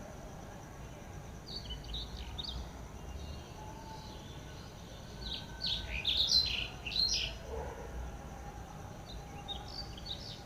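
Wild birds chirping in short high calls, with a louder run of quick chirps about halfway through, over a steady low background hum.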